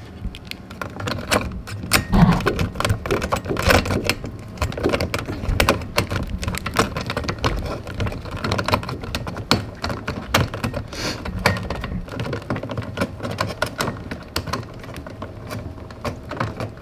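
Dense, irregular clicking and tapping of metal parts as a screw is driven in to fasten the metal cover of a dishwasher's electrical junction box.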